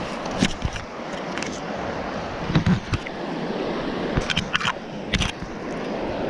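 Scattered clicks, taps and a few dull knocks as a yellow rope stringer holding a caught striped bass is handled against a metal pipe railing, over a steady rush of wind and moving aqueduct water.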